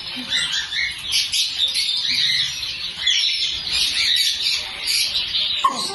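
A dense chorus of many small cage birds chirping and tweeting at once, with overlapping high calls and no pause.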